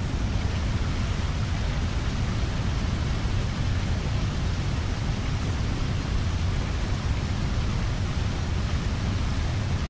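Steady, even rushing noise with a heavy low rumble. It starts and stops abruptly, like a spliced-in clip.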